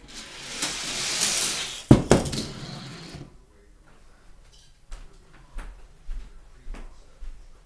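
A die-cast Hot Wheels toy car rolling down a plastic track with a rising rush, then landing with two sharp clattering knocks about two seconds in. A few faint ticks follow.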